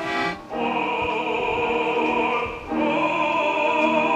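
Singing in operatic style: two long held notes, one after the other, with a short break between them about two and a half seconds in.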